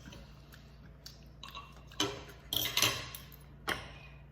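Scattered light clinks and taps of cutlery on a plate, about half a dozen spread over a few seconds, the sharpest around two and three seconds in.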